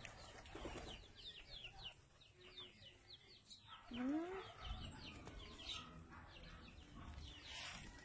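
Chickens clucking and peeping in a mixed flock, with short high falling chirps repeating throughout and a lower rising call about four seconds in.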